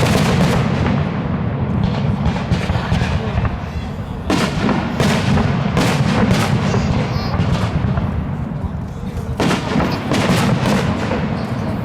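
Fireworks going off in quick succession: sharp bangs and crackles over a continuous low rumble, with thicker clusters of bursts about four seconds and nine and a half seconds in.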